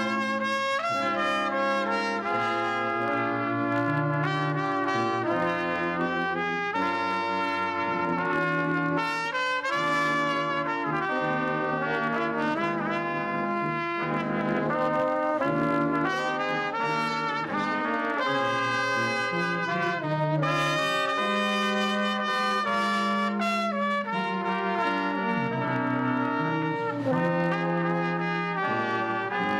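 Small brass ensemble of trumpets and a tuba playing a piece together, with the trumpets' melody over a moving tuba bass line.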